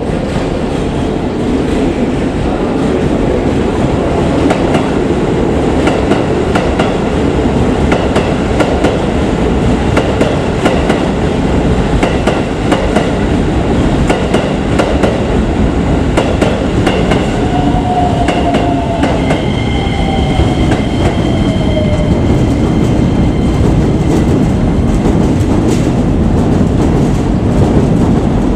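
Keisei 3000-series electric train pulling into the station. A steady rumble runs with wheels clacking over the points and rail joints. From about two-thirds of the way in a falling whine sounds as it slows, then a high steady tone.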